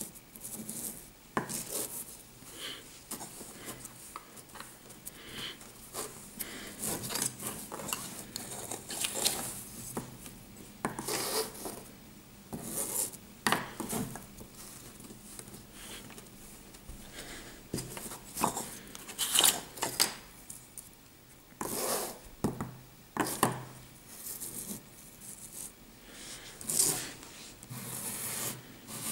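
Kinetic sand being rubbed, scraped and pressed by hand, with plastic castle moulds scraping and knocking lightly on the tabletop. The strokes are irregular: short scrapes and clicks come and go with small pauses between them.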